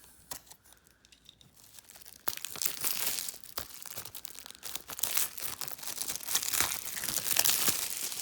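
Plastic shrink wrap being torn and peeled off a Blu-ray case, with a few light clicks at first, then about two seconds in a dense crinkling and tearing that lasts to the end.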